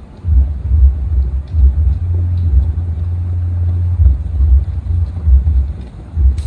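Low, uneven rumble on the microphone, steadiest around the middle, with a few faint clicks.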